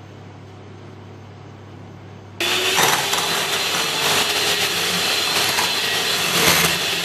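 Electric hand mixer switched on about two seconds in and running steadily at speed, its beaters whisking whipped egg-and-sugar sponge batter with a steady motor whine.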